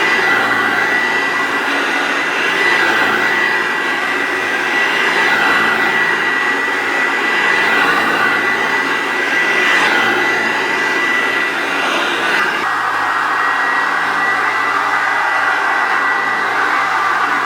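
1985 Hoover Turbopower Junior U1102 vacuum cleaner running steadily: mostly the rush of airflow, with a steady high whine over it. The freshly washed bag's open pores let the airflow through loudly. The tone shifts slightly about twelve seconds in.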